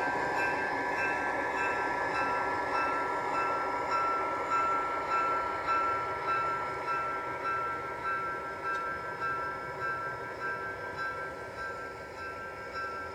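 QSI sound decoder in a USA Trains G-scale GP30 model diesel locomotive playing its diesel engine sound through the model's small speaker. A steady hum with a regular pulsing beat that gradually gets quieter.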